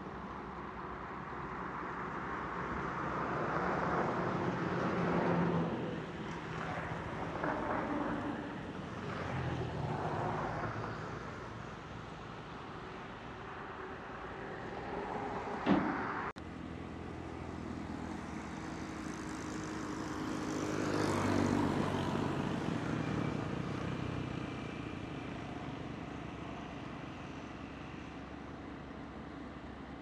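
Diesel engine of heavy earthmoving machinery working, its sound swelling and easing off several times as it takes load, with a sharp knock just past halfway.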